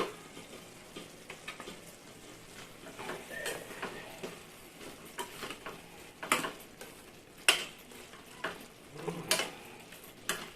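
A spoon scraping and knocking against a cooking pot as a thick tomato and onion mixture is stirred. There are scattered light clicks, with a few louder knocks about halfway through.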